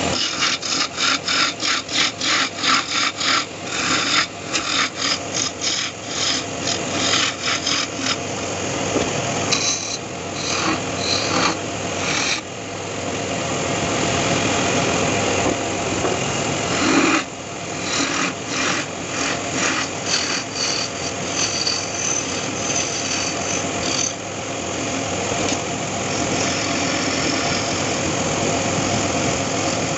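Wood lathe turning a wooden sofa leg while a hand-held turning chisel scrapes and cuts the spinning wood. It pulses quickly for the first several seconds, then settles into a steadier scraping with a few short breaks.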